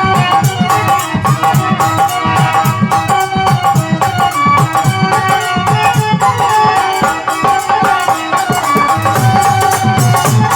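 Instrumental passage of Indian folk devotional music: a hand drum and shaken rattles keep a quick beat under a sustained melodic line, with no singing.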